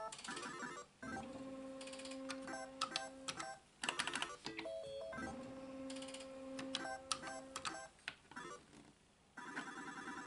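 Solex 2 pachislot slot machine's electronic sounds: twice a steady electronic tone while the reels spin, cut by sharp clicks as the reels are stopped, then near the end a fast-repeating electronic jingle as a win pays out and the credits count up.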